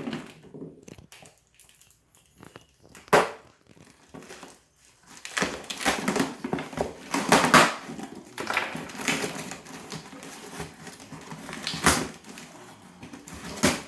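Packaging being opened and handled while a goalie glove is unboxed: crinkling, rustling and crunching, with a sharp crack about three seconds in, a loud stretch in the middle and another sharp crack near the end.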